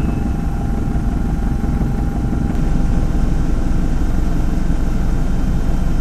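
Helicopter in flight: a steady, loud, low-heavy drone of engine and rotor noise with no change in pitch.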